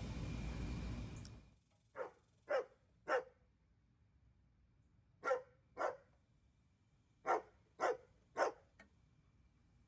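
A dog barking in three short runs: three barks, then two, then three, each about half a second apart. Before the barking, a steady rushing noise stops abruptly just over a second in.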